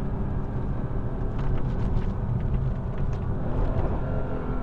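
Mercedes-AMG C63 S Coupe's twin-turbo V8 running steadily while driving in Sport Plus mode, heard from inside the cabin as a low, even drone, with a few faint clicks over it.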